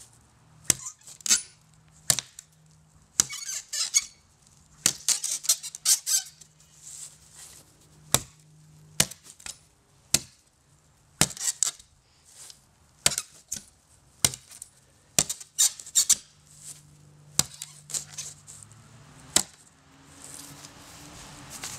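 Cold Steel Bushman knife chopping into 1/2-inch plywood: a run of sharp chops, about one a second, each with a crackle of splitting wood. The last chop lands a couple of seconds before the end.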